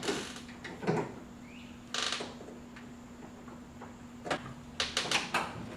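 Scattered small clicks, scrapes and rattles of metal linkage rods and plastic rod clips being worked by hand inside a pickup's door, with a quick cluster of clicks near the end over a faint steady hum.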